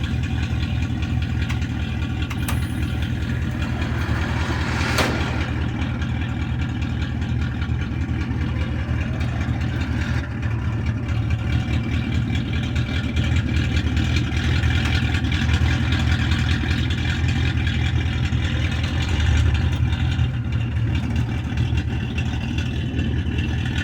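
Truck engine running steadily at a low idle, with a single sharp knock about five seconds in.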